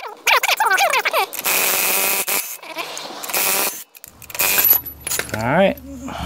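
Impact wrench running in short bursts as it spins wheel lug nuts loose. Loose metal lug nuts clink toward the end.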